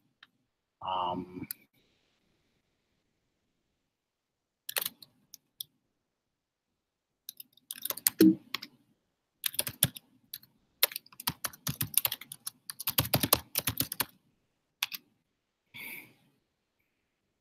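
Typing on a computer keyboard. A few key clicks come about five seconds in, then a quick run of keystrokes from about seven to fourteen seconds.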